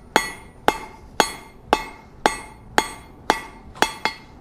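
Hand hammer striking hot 1/4-inch round mild steel on an anvil, drawing out a point: a steady rhythm of about two blows a second, each with a short bright ring.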